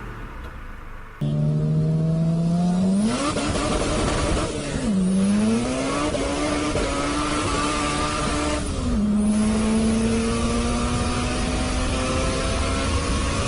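6th-generation Honda Civic's 1.6-litre inline-four VTEC engine accelerating hard through the gears. It comes in about a second in, the revs climb and rise steeply around three seconds in, then drop at two upshifts, about five and nine seconds in, climbing again after each.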